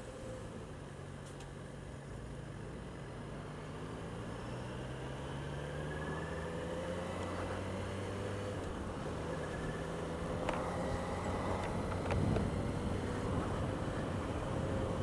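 Motorcycle engine running while riding in town traffic, its pitch rising slowly and the level building, under steady wind and road noise. A couple of brief clicks come late on.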